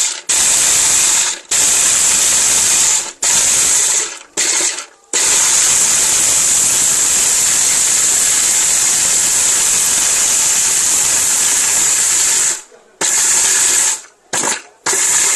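Sahara Elegant electric blender's motor running with whole dried turmeric rattling in the jar as it grinds it to powder. It is switched on and off in short spells, with one long run of about seven seconds in the middle.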